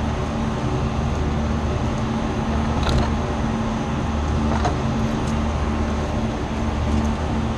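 Steady low mechanical hum, with a few faint light clicks about three and four and a half seconds in.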